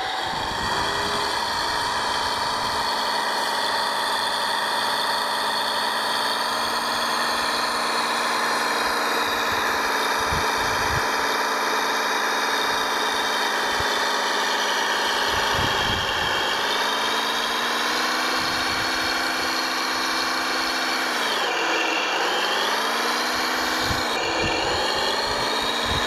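Motors of a radio-controlled scale construction machine running steadily. The pitch dips and rises again a few times as it slows and speeds up, with a few low bumps underneath.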